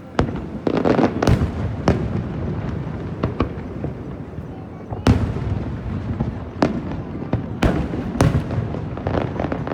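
Aerial firework shells bursting in irregular succession: a string of sharp bangs, some in quick pairs, with the loudest about five seconds in.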